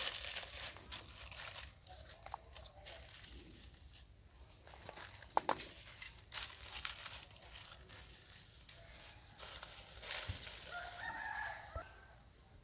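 Crackling and rustling of dry leaves and twigs, with one sharper snap about five seconds in, and a drawn-out animal call lasting about a second and a half near the end.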